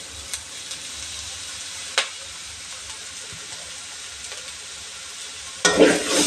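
Sliced onions, green chillies and curry leaves with ginger-garlic sizzling steadily in oil in an aluminium kadai on a low flame, with a few sharp ticks. Near the end, stirring starts with a louder scraping in the pan. This is the stage where the raw smell of the ginger-garlic is cooked off.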